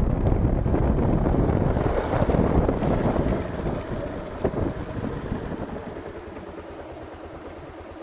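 Wind buffeting the microphone of a camera on a moving motorcycle, a dense low rumble. It dies away from about three seconds in as the bike slows down.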